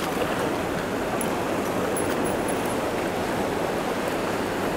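Steady rushing of a fast-flowing river running over rocks.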